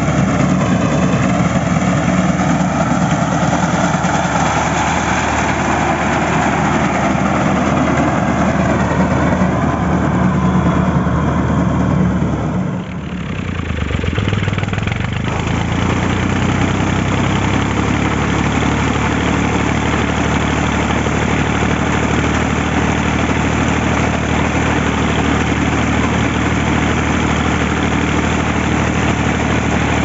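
Al-Ghazi tractor's diesel engine running steadily under load as it drives a front-mounted reaper binder cutting wheat. About thirteen seconds in the sound briefly dips, the engine pitch rises a little, and it runs on steadily and slightly closer.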